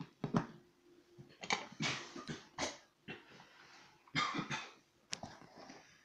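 A man coughing, several short harsh coughs in two bouts, with a single sharp click near the end.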